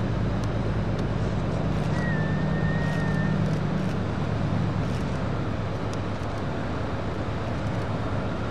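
Low, steady engine drone over a broad rumble, its hum weakening about four seconds in; a brief high whistle sounds about two seconds in.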